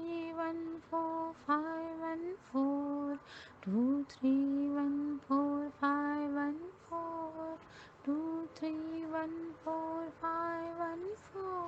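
A woman chanting the number sequence 2314514 over and over in a sing-song voice, each number one short syllable held on a nearly level pitch with little glides between notes.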